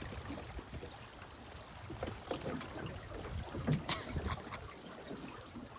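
River water running steadily, with scattered short clicks and knocks from about two seconds in.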